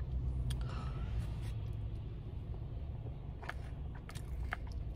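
A person chewing a bite of warm, soft, gooey cookie, with small wet mouth clicks every so often over a steady low hum.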